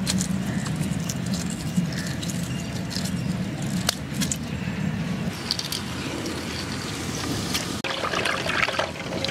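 Shells of hard-boiled eggs crackling and crinkling as they are peeled by hand, small scattered clicks over a steady low background rumble.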